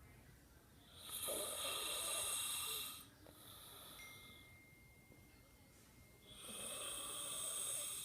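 A man snoring in his sleep: two long snores of about two seconds each, some five seconds apart.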